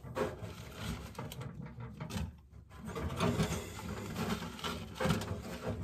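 Rummaging and rustling while he searches a shelf for a carburetor kit, his shirt brushing close to the microphone, with scattered small clicks of things being moved.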